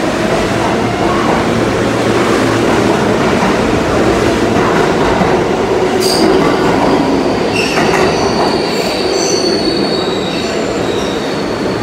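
New York City subway train of R143 cars moving through an underground station, a loud, steady rumble of wheels on rail. About six seconds in, high-pitched wheel squeal joins and carries on to the end.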